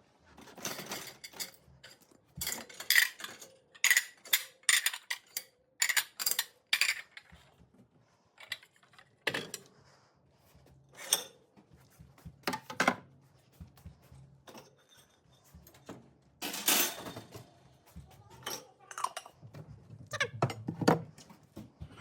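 Dishes, glasses and cutlery clinking and knocking irregularly as clean dishes are unloaded from a dishwasher, with a longer rattle partway through.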